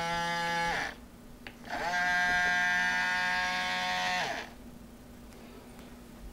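OWI535 robot arm's small DC gearbox motors whining as the joints move: one run winds down under a second in, and a second starts about two seconds in and runs for about two and a half seconds. Each rises in pitch as it spins up and falls as it stops.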